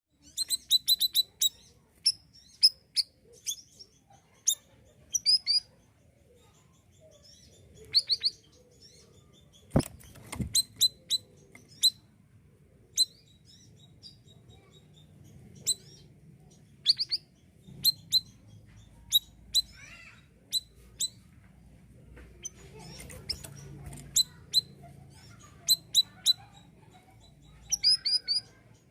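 A male siri-siri bird singing in short bursts of sharp, high chirps, a few quick notes at a time, with pauses between bursts.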